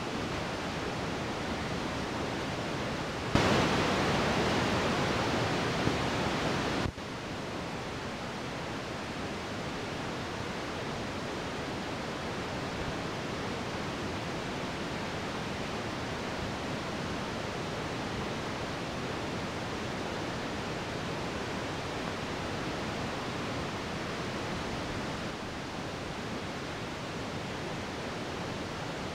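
Steady rushing noise inside a moving bus, from road and running noise. A few seconds in, a louder rush starts with a click and cuts off abruptly about three and a half seconds later.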